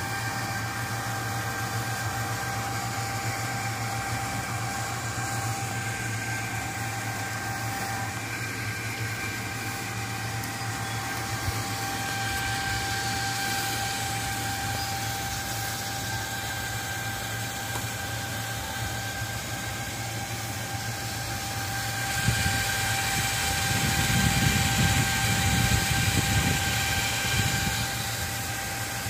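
Desktop PC fans, with an AMD stock CPU cooler, running loud and steady at full speed under a Prime95 stress load on an overclocked Phenom X4 9850, a steady hum under an airy rush. The rush swells louder with a deeper rumble for several seconds near the end.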